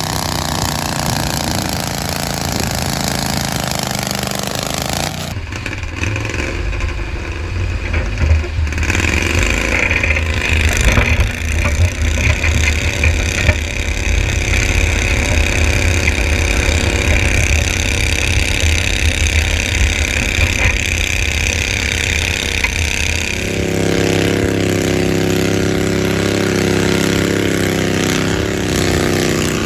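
Pulling garden tractor's engine running hard under load, with a high whine over the engine through the middle, then settling to a steadier, lower note about 23 seconds in.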